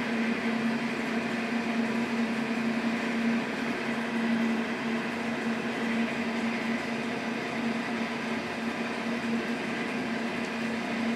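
A steady motor hum over an even whirring hiss, with no strokes or rhythm: a machine motor or fan running steadily, with no cutting heard.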